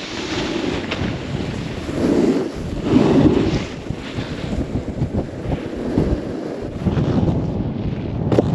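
Wind buffeting a moving camera's microphone, mixed with the scrape of snowboard edges over groomed snow, swelling and fading in surges. A short sharp knock comes near the end.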